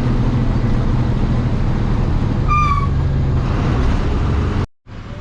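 A road vehicle's engine running steadily under a loud, even rush of road noise. A short high beep sounds about halfway, and the sound cuts off suddenly near the end.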